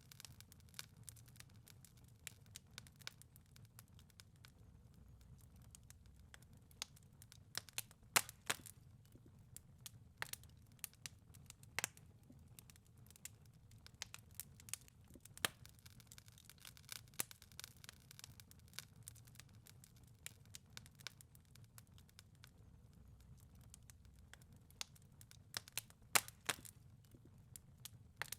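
Wood fire crackling in a fireplace: irregular sharp pops and snaps over a low, steady rumble, with a few louder pops about a third of the way in and again near the end.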